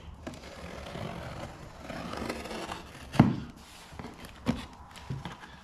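Parcel packaging being handled and opened: rustling and scraping, then a few sharp knocks, the loudest about three seconds in.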